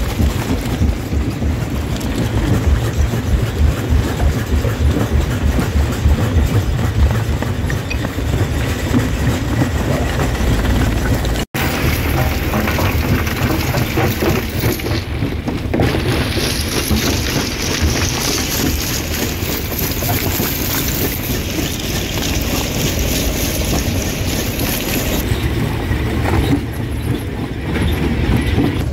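Rock crusher running and crushing stone: a steady heavy clatter with a dense low pulsing underneath. It breaks off for an instant about eleven seconds in, then carries on with more high grinding hiss.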